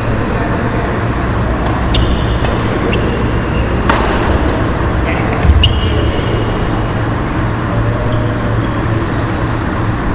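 Badminton doubles rally: a few sharp racket strikes on the shuttlecock and brief shoe squeaks on the wooden court, over a steady low rumble.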